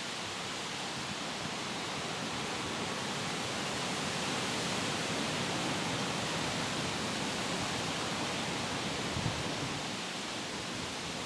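Steady rushing noise, an even hiss that swells slowly through the middle and eases off near the end, with a couple of faint low thuds about nine seconds in.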